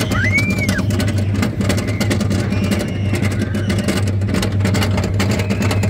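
Roller coaster car climbing the lift hill: a steady low hum from the chain drive under a fast, continuous clicking of the lift chain and ratchet.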